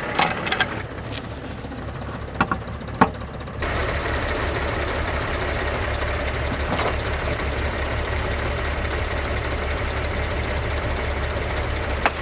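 A few sharp knocks, then from about three and a half seconds in a New Holland tractor's diesel engine runs steadily as it is used to push and bend the skidder's drawbar.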